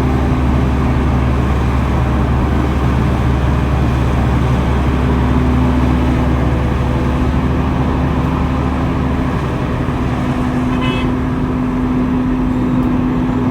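Heavy earthmoving machinery's diesel engine running steadily under load, a low rumble with a constant hum. A brief high tone sounds near the end.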